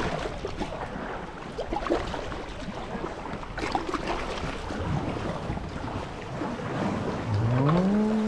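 Wind buffeting the microphone over water sloshing around a small boat, with scattered light knocks and splashes. Near the end a short tone rises and then holds.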